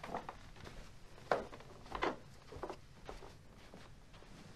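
Slow, soft footsteps, one step about every half second to a second, in a quiet room.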